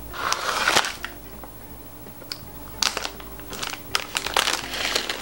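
Crinkly plastic wrapper of an ice cream cone being handled and torn open, heard close up as irregular bursts of crackling: a loud burst about half a second in, then several more in the second half.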